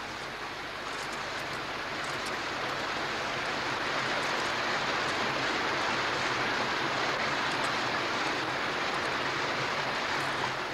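Steady rush of white water from a torrent in a cave, growing a little louder over the first few seconds.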